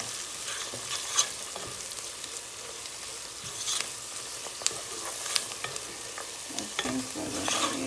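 Sliced onions and berbere frying in butter and oil in a pot, sizzling steadily while a wooden spatula stirs and scrapes them, with a few short sharp scrapes along the way.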